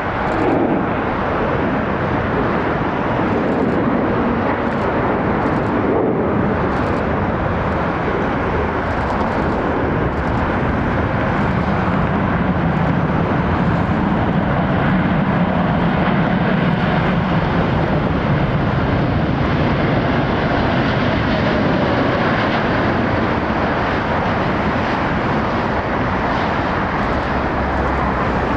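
Rolls-Royce Trent XWB turbofans of an Airbus A350-900 airliner, loud and steady, as the jet lands and rolls out along the runway; a tone falls in pitch over the first few seconds.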